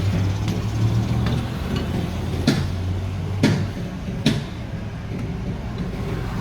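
A motor running with a steady low hum, with three sharp knocks in the middle. The hum drops away about four and a half seconds in.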